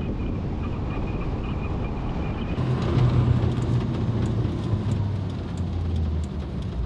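2005 Chevy Kodiak C4500 ambulance truck driving on city streets. At first there is the rush of wind and road noise. About two and a half seconds in, this gives way to the in-cab sound of the engine, a strong low hum that drifts slightly lower in pitch and fades near the end.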